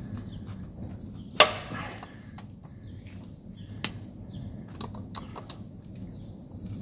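Open-end spanner working the 13 mm terminal nut on the starter: one sharp metallic knock about a second and a half in, then a few light clicks, over a low steady hum.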